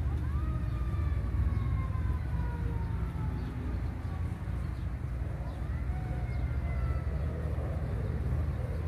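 A distant siren wails twice, each wail rising quickly and then sliding slowly down, over a steady low outdoor rumble.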